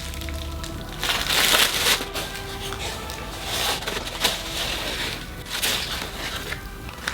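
Packing paper and packaging crinkling and rustling in bursts as a camera is handled out of its box, with faint music underneath.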